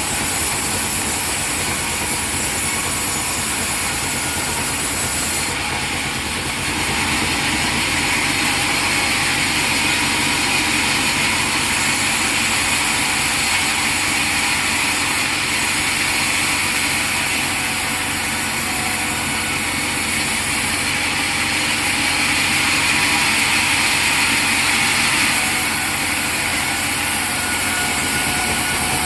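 Sawmill machinery running steadily and loudly, turning brighter and harsher about seven seconds in and holding that tone for most of the rest.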